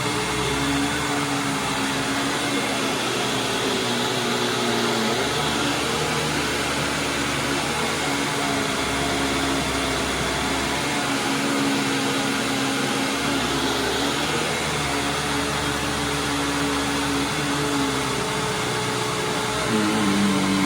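Hoover WindTunnel Supreme upright vacuum cleaner running steadily over carpet, its motor hum dipping in pitch and recovering every few seconds.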